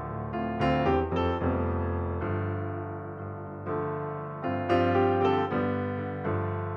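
Background piano music: slow notes and chords, each struck and left to ring and die away, with clusters of notes about a second in and again near five seconds.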